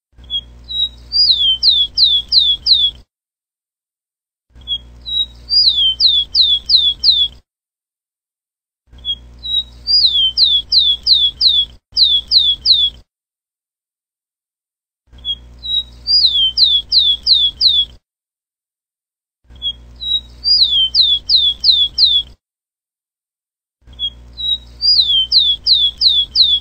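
Rufous-collared sparrow (tico-tico) singing about six times over, every four to five seconds. Each song is one or two short high notes followed by a quick run of about five falling whistles, with silence between songs.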